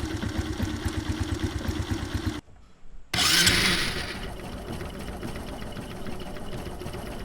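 Small motorcycle engine idling with a fast, even putter, breaking off about two and a half seconds in. After a short gap, the electric starter whirs, the engine catches and it settles back to a steady idle.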